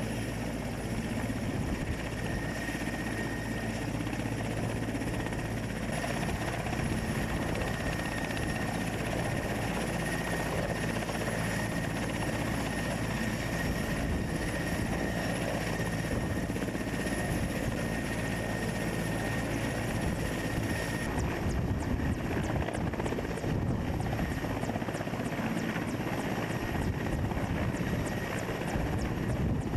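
Indian Air Force Mi-17 helicopter running on the ground: steady turbine whine with the rotor noise underneath. About two-thirds of the way through the sound changes and a fast, even rotor beat becomes clearer.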